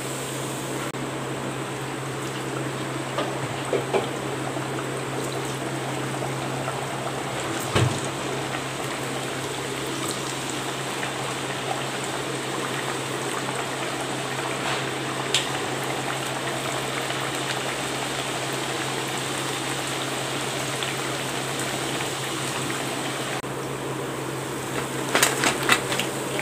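Thattai (flat rice-flour discs) deep-frying in hot oil in an aluminium kadai: a steady sizzling and bubbling, broken by an odd click. Near the end, a metal slotted spoon clatters as the fried discs are lifted onto a steel tray.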